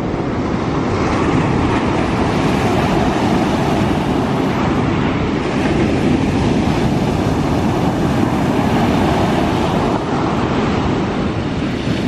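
Ocean surf breaking and washing up onto a sandy beach: a steady, loud roar of waves.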